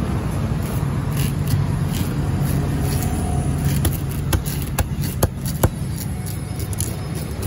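Large fish knife striking a wooden chopping block while cutting tuna: about five sharp knocks roughly half a second apart in the second half, over a steady low rumble.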